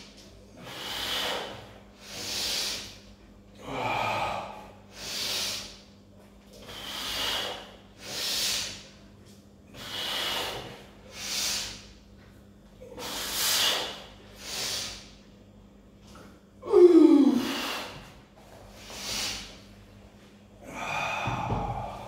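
Hard, rhythmic breathing of a man straining through dumbbell preacher curls, a sharp breath about every second and a half. About three-quarters of the way through comes one louder breath with a falling groan, and near the end a low thud.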